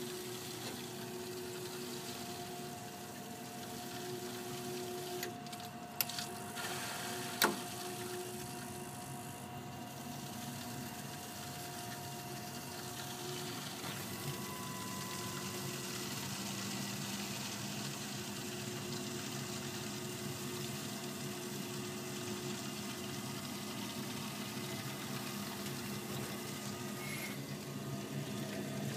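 Ideal Icos gas boiler running normally after repair: a steady hum with a few fixed tones over the rush of water through the system. Two short clicks come about six and seven and a half seconds in.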